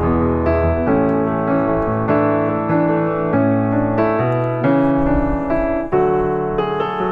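Background piano music, a steady run of played notes.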